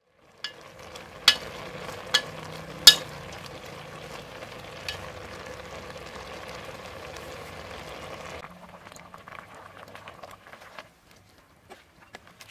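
Wooden spatula stirring frog pieces sizzling in a metal cooking pot, with a steady hiss and a few sharp knocks against the pot in the first three seconds. After about eight seconds the hiss drops away, leaving soft scattered clicks of utensils in the soup.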